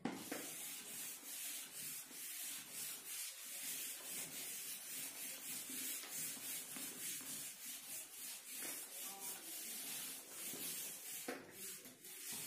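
Handheld whiteboard eraser rubbing across a whiteboard in repeated quick wiping strokes, a faint scratchy hiss.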